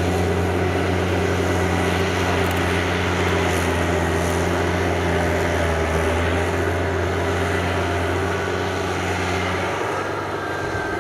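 Kubota DC70 tracked combine harvester converted to a rotary tiller, its diesel engine running steadily under load as the tiller blades churn the mud of a flooded rice paddy. It eases off slightly near the end.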